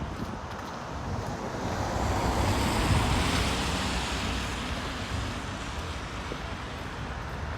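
A vehicle passing on the street: tyre and road noise swells, peaks about three seconds in, then fades. Wind rumbles on the microphone throughout.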